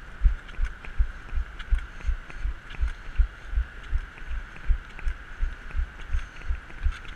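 Even low thuds about three times a second, the jolt of a crutch runner's strides at race pace carried through a moving camera, over a steady high hum.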